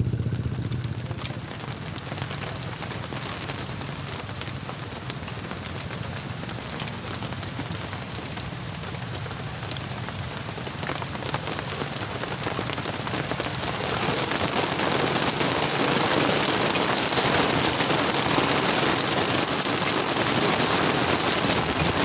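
Rain falling steadily as a dense patter of drops, growing heavier about two-thirds of the way through. A motor's low hum dies away at the very start.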